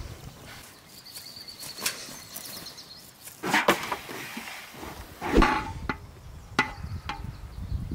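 Metal knocks and scrapes of a long metal skimmer working rice inside a large metal cooking pot set on the ground, with several sharp clanks, the loudest about five seconds in.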